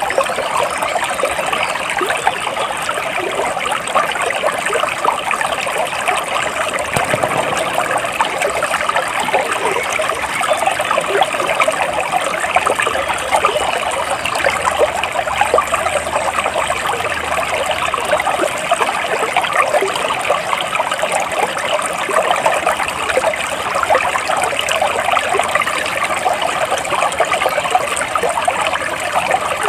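Stream water trickling and babbling steadily.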